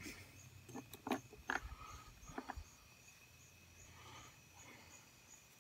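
Small fatwood fire crackling quietly, with a few sharp pops in the first half. A faint high chirp repeats evenly about three times a second behind it.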